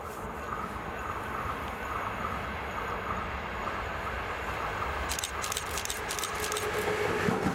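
A freight train hauled by a VR Class Sr3 (Siemens Vectron) electric locomotive approaches and draws level at speed. The rumble of wheels on rail grows steadily louder. A run of sharp clicks comes about five seconds in, and a steady hum joins near the end as the locomotive comes alongside.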